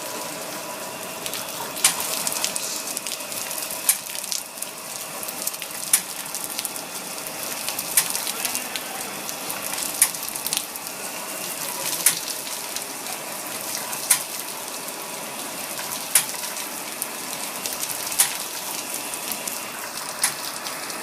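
Bottle washing machine running: a steady hiss of spraying water, with a sharp click about every two seconds.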